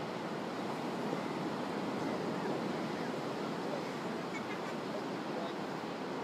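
Ocean surf: a steady rushing noise of waves with no distinct single crashes.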